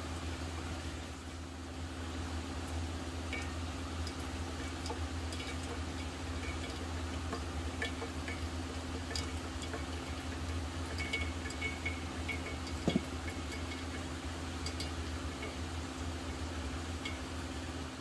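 Hot water poured from a small camping kettle into a drip-coffee bag on a mug, a thin trickle with small clinks of the kettle and mug, over a steady low hum and hiss. One soft knock sounds partway through the pour.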